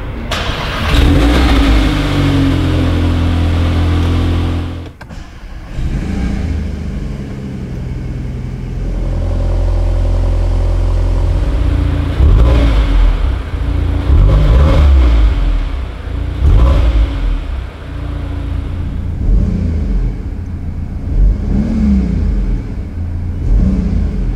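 The 2021 VW Golf 8 R's 2.0-litre turbocharged four-cylinder engine is heard through its quad exhaust while the car stands still. It runs at a steady idle, then is revved in several short blips from about halfway on, each rising and falling back.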